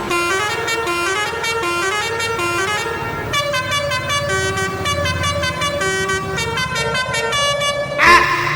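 A fast melodic tune of short, bright, horn-like notes in a quick repeating pattern, with a loud wavering tone about eight seconds in.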